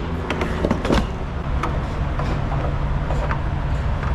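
A diesel truck engine idling steadily, with a quick run of sharp clicks and clanks in the first second and one more a little later, typical of fuel nozzles and tank caps being handled after topping off.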